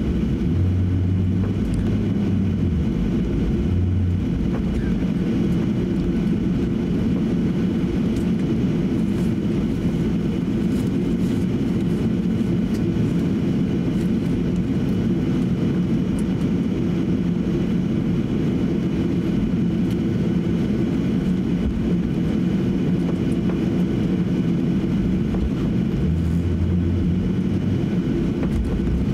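Cabin noise of a Boeing 737-800 taxiing: the CFM56 engines running near idle give a steady low rumble and hum. Deeper rumbles come through in the first few seconds and again near the end.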